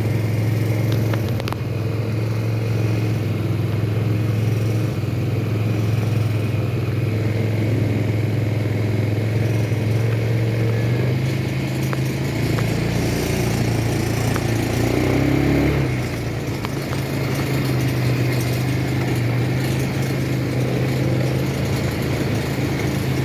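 ATV engine running steadily while under way, its note stepping up a little in pitch about halfway through, with a few seconds of low rumble around the middle.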